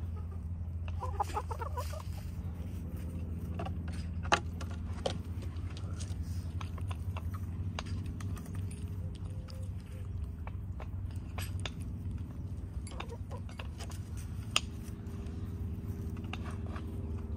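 Hens pecking at food on a small wooden treat stand, their beaks tapping in scattered sharp clicks, with a short cluck about a second in. A steady low hum runs underneath.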